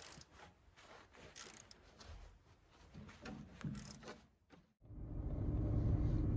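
Faint, scattered metallic clicks and taps of a wrench working the engine's mounting bolts, then after about five seconds a sudden change to a steady low rumble.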